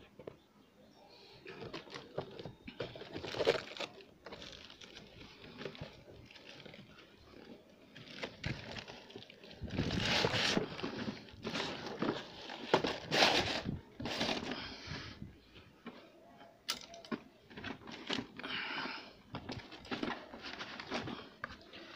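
Cardboard and printed-card packaging being handled and opened: irregular rustling, crinkling and scraping, loudest around ten and thirteen seconds in.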